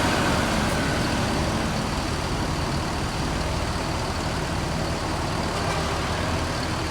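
Diesel intercity bus engine running with a steady low rumble as the bus pulls away.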